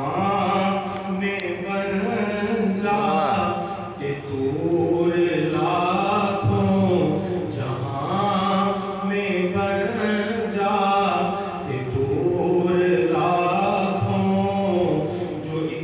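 A man's solo voice reciting an Urdu naat, a devotional chant sung without instruments into a microphone, in long drawn-out melodic phrases with brief pauses for breath a few times.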